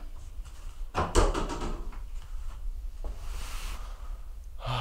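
A person shifting on a bed, sheets and pillows rustling, with a soft thump about a second in, then a breathy sigh near the end.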